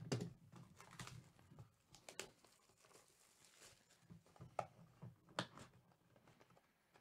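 A cardboard hobby box of baseball cards being handled and opened by hand: faint rustling and scraping of the box and its wrapping, broken by a few sharp clicks and taps, the loudest just after the start and about five and a half seconds in.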